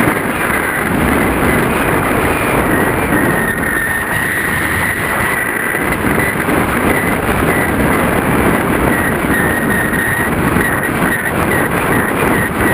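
Airflow rushing and buffeting over the microphone of a camera on a paraglider in flight, with a faint steady high whistle running through it.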